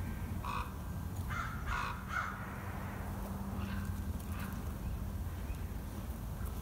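A few short, harsh animal calls, clustered in the first two seconds and fainter again around the middle, over a steady low rumble.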